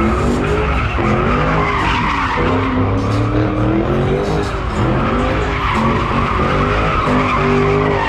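Ford Mustang drifting in circles, its rear tyres spinning and squealing without a break while the engine revs rise and fall with the throttle.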